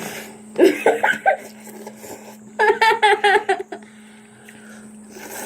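Children's voices laughing and giggling in short bursts, then a longer wavering vocal sound, over a steady low electrical hum.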